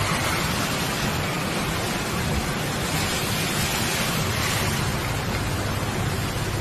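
Fast-flowing floodwater rushing and churning, a steady loud noise that holds evenly throughout.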